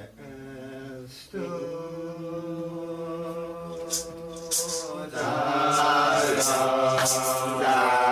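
A group of voices chanting a Rastafari hymn in long held notes, with no instruments at first. It swells louder and fuller about five seconds in, and short, crisp high percussion hits join in.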